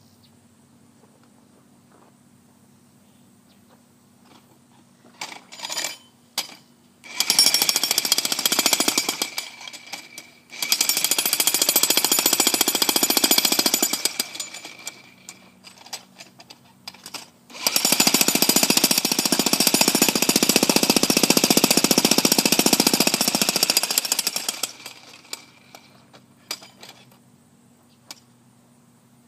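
Jackhammer hammering in rapid strokes: a couple of brief starts, then three long runs, the last about seven seconds long.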